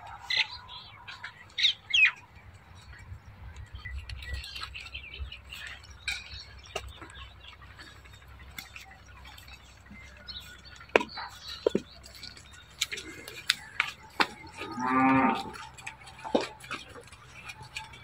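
A dairy cow moos once near the end, one call about a second long. Birds chirp in the first couple of seconds, with scattered clicks and knocks around the farm.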